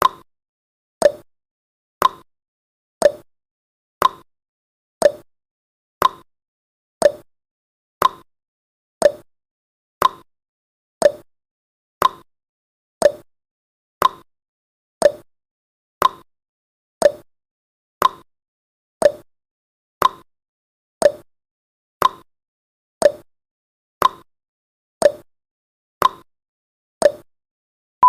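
Countdown timer tick sound effect: one short, sharp tick every second, evenly spaced.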